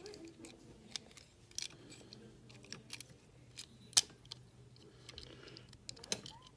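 Small clicks and taps of a die-cast toy car being handled and its parts fitted back together, with one sharp click about four seconds in.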